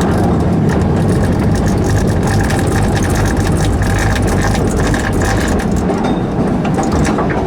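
Steam train running along its track, a steady low rumble with rapid wheel and rail clicks.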